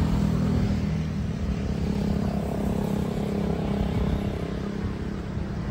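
Engine of a road vehicle running nearby with a low steady hum, easing off a little in the second half.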